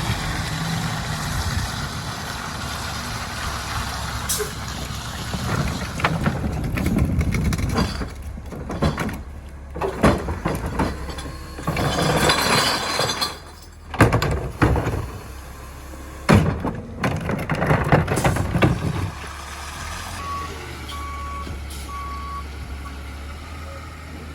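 Garbage truck's diesel engine and hydraulics running while the packer compacts recycling, with a series of loud clanks and bangs through the middle. Near the end the noise settles and a backup alarm beeps a few times at one steady pitch.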